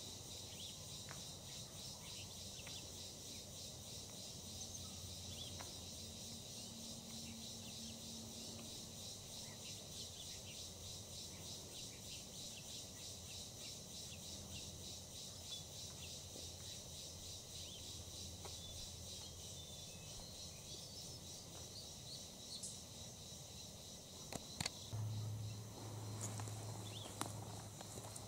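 Faint, steady chorus of insects chirping in a fast pulsing trill, like crickets. Near the end a low hum and a few sharp knocks come in.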